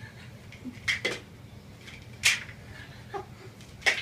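Several short, sharp clicks and clinks of small hard objects being knocked about on top of a refrigerator, about five in all, the loudest a little past two seconds in.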